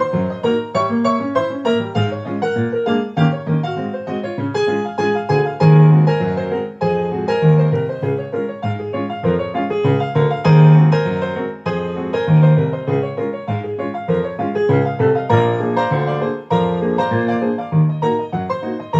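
Piano playing a ragtime piece at a fast tempo, with a steady pulse of bass notes under a busy melody.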